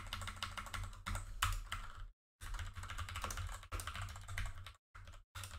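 Typing on a computer keyboard: fast runs of key clicks, broken by a couple of short pauses.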